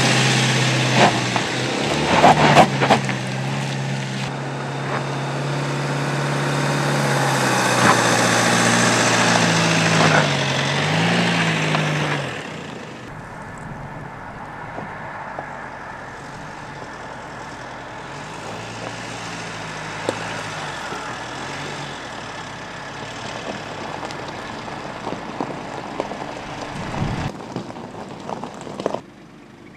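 Mercedes-Benz GLC SUV engine running at low revs while it crawls over steep dirt and gravel slopes. Its pitch rises and falls with the throttle, and crunches and crackles of stones come under the tyres a couple of seconds in. About halfway through the sound drops to a quieter engine hum as the car creeps on at low speed.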